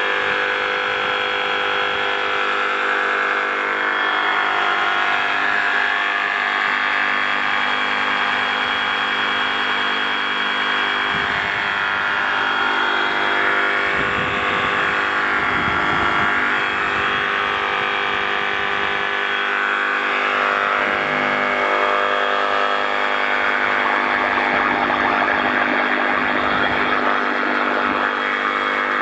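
Flex FX2271 24-volt brushless cordless reciprocating saw running steadily with its front end under water, a steady motor whine over water churning and splashing. The saw is still running normally after nearly an hour and a half in the water.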